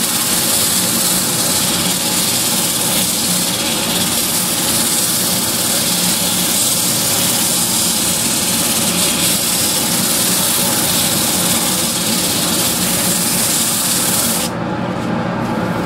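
Lathe running with a steady motor hum under a loud, even hiss; near the end the hiss drops away suddenly while the motor keeps running.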